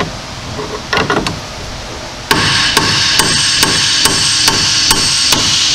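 Hammer blows on a Jeep Grand Cherokee's aluminum steering knuckle, knocking the upper ball joint's stud loose from the knuckle. There is a single blow about a second in, then a quick run of strikes about two or three a second over a loud steady hiss.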